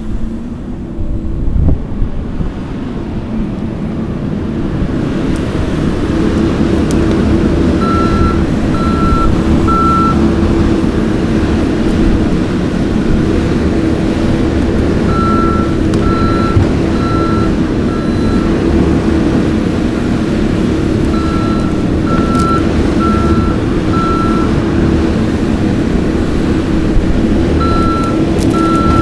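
Kioti skid steer's diesel engine running steadily, rising in level over the first few seconds. Its backup alarm beeps in runs of three or four, about one beep a second, each time the machine reverses.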